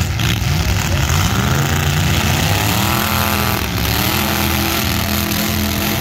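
Full-size demolition derby car engines running loud and revving, the pitch climbing and falling again around the middle.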